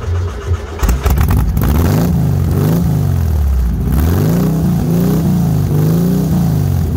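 1978 VW Brasília's 1600 air-cooled flat-four engine, with its single carburettor, is revved up and down over and over through a loud, open buggy-style exhaust. The repeated revving picks up about a second in.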